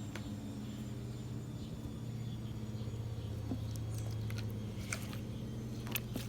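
A steady low hum, with a few faint clicks in the second half.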